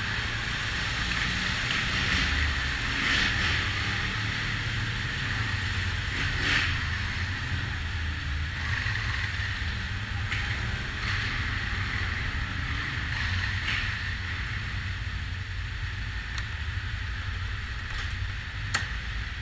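ATV engine running steadily as the quad rides along a trail, heard from on board, with occasional sharp knocks.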